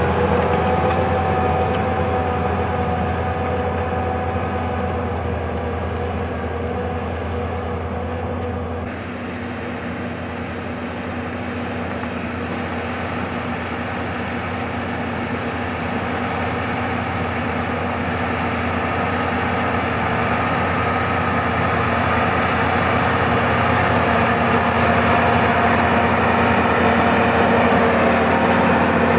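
Massey Ferguson 7620 tractor's diesel engine running steadily under load while pulling a five-furrow plough. The engine note changes abruptly about a third of the way in, then grows gradually louder.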